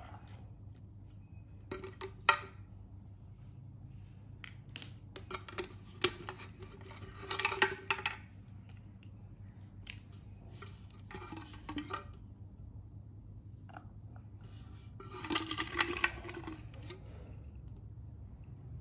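Parts of a plastic water bottle being handled: the handle, strap and small plastic straw pieces click, clatter and rustle against a table in several short bursts, over a low steady hum.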